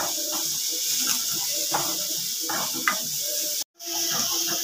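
Food sizzling as it fries in a pan on a gas stove, a steady hiss, with a spatula scraping and stirring it. The sound cuts out for a split second near the end.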